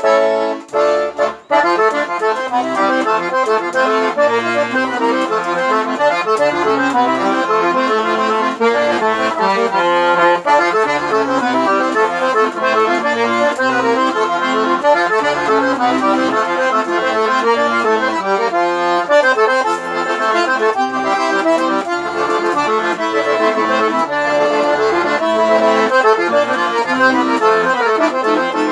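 Accordion (sanfona) playing an instrumental tune: a busy melody over short, separate bass notes, with a few quick chord stabs at the start.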